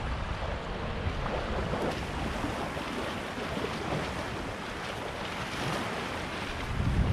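Wind buffeting the microphone outdoors: a steady rush with a fluttering low rumble, and a stronger gust near the end.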